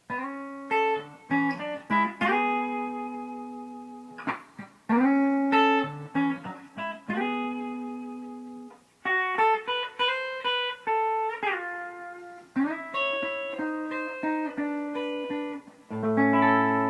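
Gibson ES-359 electric guitar played clean through a compressor-pedal chain: short melodic phrases of picked notes and double-stops with long sustain, ending on a ringing chord near the end.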